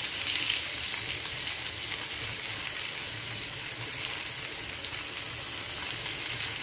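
Chicken pieces frying in ghee on a ridged grill pan: a steady sizzle as water-thinned food colour is brushed onto the hot meat.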